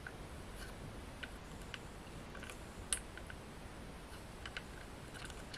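Faint scattered clicks and taps of a plastic Plarail toy train car being handled and turned in the hands, with one sharper click about three seconds in.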